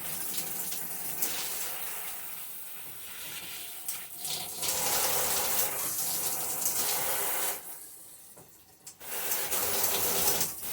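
Hot water running through a newly fitted hand-held shower head, a steady spray hiss, run to loosen the stiff new rubber hose. The spray falls away for about a second near the end, then comes back.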